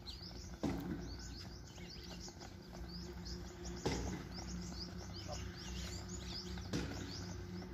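Many small birds chirping in quick short calls over a steady low background rumble. Three sharp knocks break in: one about a second in, one near the middle and one near the end.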